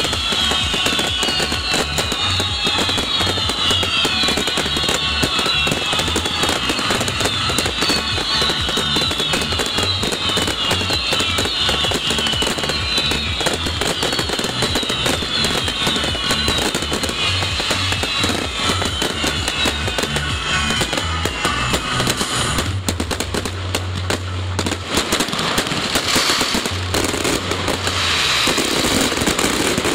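Fireworks finale: a dense, continuous run of consumer fireworks bangs and crackling, with music playing alongside. A repeating falling high sound drops out about two-thirds of the way through, leaving the bangs and crackle more exposed.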